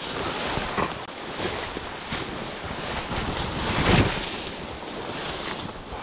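Tall grass rustling and brushing against clothing and the camera as a person pushes through it on foot, loudest about four seconds in.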